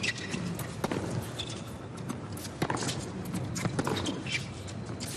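Tennis rally on a hard court: sharp, irregularly spaced knocks of rackets striking the ball and the ball bouncing, over a low steady background murmur.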